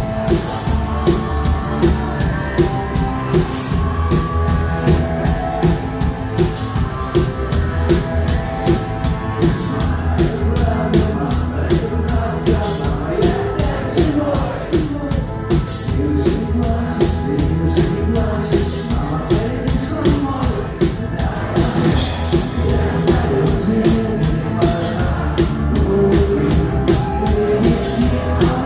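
Rock band playing live: a drum kit keeps a steady beat under electric guitar and bass.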